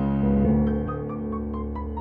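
Piano accompaniment: a chord held and slowly fading, with a quiet run of short higher notes, about five a second, stepping above it.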